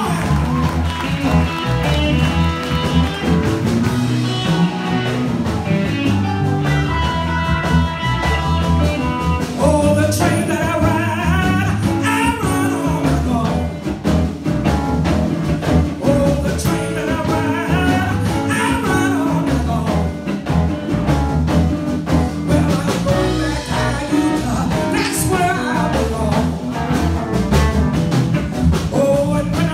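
A live band performing with a lead singer: sung vocal lines over a steady drum and bass groove.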